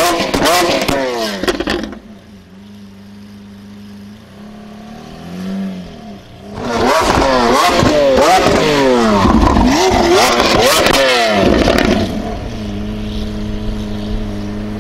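Lamborghini Aventador's 6.5-litre V12 through a Capristo exhaust, revved hard in quick rising and falling blips with crackling from the exhaust. It drops to a steady idle for a few seconds and is blipped once more. It revs hard again for about five seconds, then settles to a steady lower run near the end.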